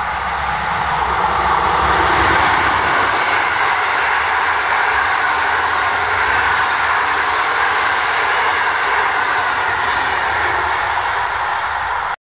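A passenger train of Intercity coaches, hauled by an electric locomotive, passes close by at speed. Its wheels run on the rails with a steady rushing rumble that swells over the first couple of seconds as it arrives, then holds.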